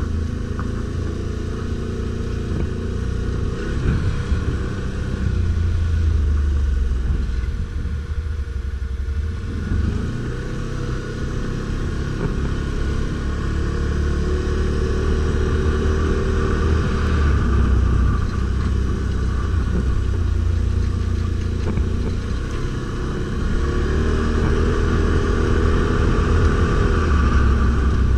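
Stels Guepard 850 ATV engine running while riding off-road, its pitch rising and falling with the throttle, with stronger revs about halfway through and again near the end.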